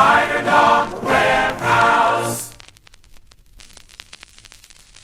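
The last phrase of a sung pop jingle with choir-like backing vocals, which ends about halfway through. Faint crackling static with scattered clicks follows.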